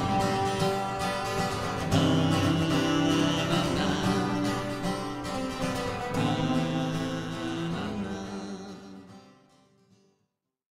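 Acoustic guitar playing the closing chords of a song, changing chord about two and six seconds in, then fading away to silence near the end.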